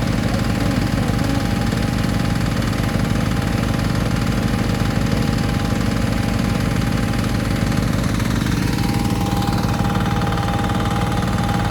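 Mini excavator engine running steadily, with a steady high whine over the engine note.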